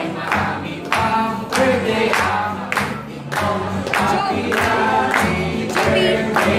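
A group of people singing a birthday song together, with steady hand clapping on the beat, a little under two claps a second.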